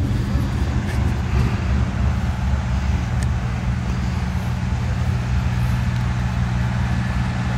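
Engine idling steadily, a low even hum.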